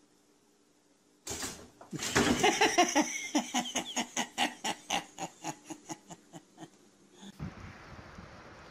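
A person laughing hard in a long run of quick bursts that fade away over several seconds, set off by a sudden loud sound about a second in.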